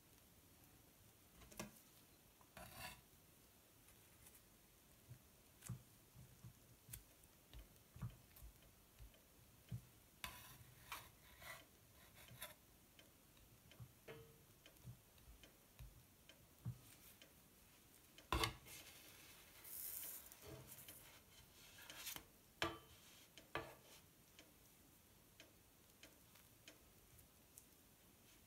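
Quiet food-handling sounds: scattered soft taps, clicks and rubs of a spatula and gloved hands working on a plastic cutting board, with one sharper knock about two-thirds of the way through and a short rustle just after it.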